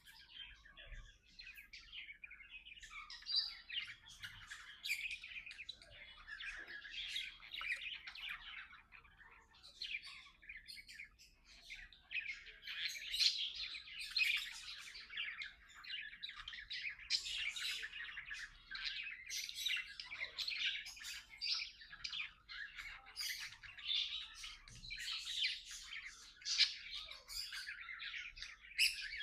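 Budgerigars chattering and warbling in a continuous run of quick chirps, with brief louder sharp chirps scattered throughout.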